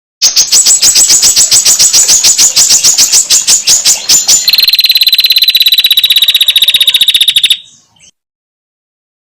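Female prinia (prenjak) rattling 'ngetir' call: a loud, dry trill of about ten notes a second that changes, about four seconds in, to a faster, steadier trill. It cuts off suddenly after about seven and a half seconds.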